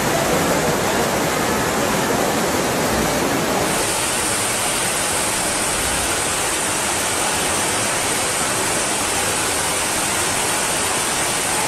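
Floodwater rushing, a loud steady dense noise like a waterfall. About four seconds in, a brighter high hiss joins it.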